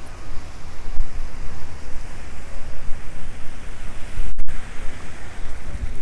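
Wind buffeting the microphone, a gusting low rumble over a steady outdoor rush. The sound cuts out for a split second a little past four seconds in.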